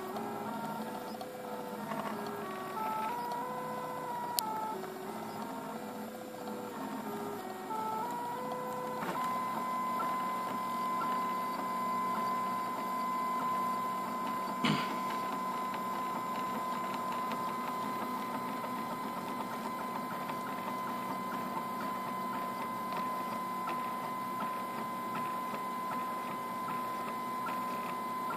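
RepRap 3D printer's stepper motors whining as the print head moves. For about the first nine seconds the pitch steps up and down between several tones, then it settles into one steady high tone. There is a sharp click about four seconds in and a short knock about fifteen seconds in.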